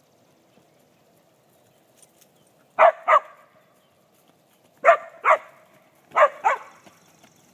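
A dog barking: six sharp barks in three quick pairs, each pair about a second and a half to two seconds after the last.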